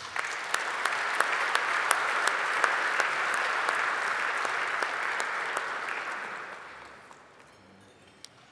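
Audience applause that starts at once, holds steady for about six seconds, then dies away.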